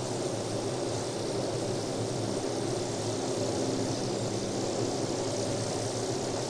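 Helicopter in flight: a steady engine and rotor drone with a hiss over it, holding an even level throughout.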